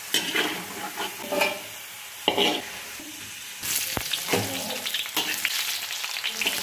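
Potato sticks for French fries sizzling in hot oil in a wok, stirred and scraped with a metal spatula in several short strokes. There is a sharp clack about four seconds in, and the sizzling is louder and denser over the last few seconds.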